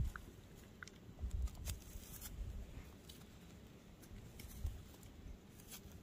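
Newborn goat kids moving about in straw close by: faint rustling with scattered light ticks and a few soft thumps.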